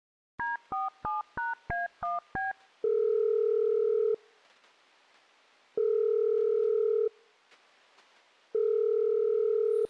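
Telephone keypad tones dialing seven digits in quick succession, then the ringing tone of the call going through: three long, steady beeps about three seconds apart.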